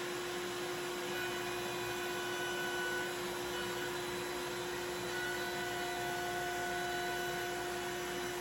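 Onefinity CNC machine humming steadily with one constant tone, while fainter whining tones come and go about a second, three seconds and five seconds in, as its motors jog.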